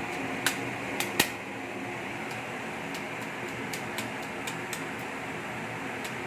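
Steady hiss of shredded cassava deep-frying in hot oil, mixed with the even noise of the kitchen's fan or burner. A few sharp clicks come about half a second and a second in, followed by lighter ticks.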